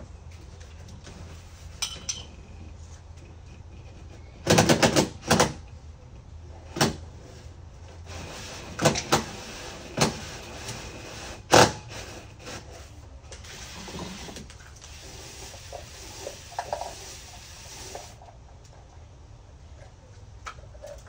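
Irregular knocks and clatters of hard objects being handled and set down: a quick cluster about four and a half seconds in, single knocks after that, and the sharpest knock near the middle.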